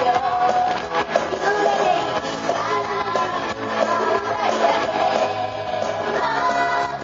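Karaoke singing over a pop-rock backing track with guitar, played loud through a PA.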